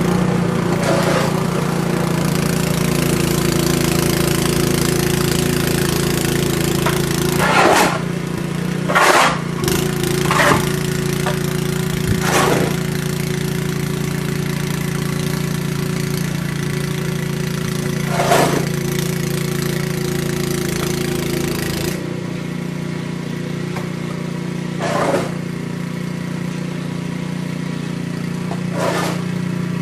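An engine running steadily, its low rumble dropping away about two-thirds of the way through, with several short, loud noises over it.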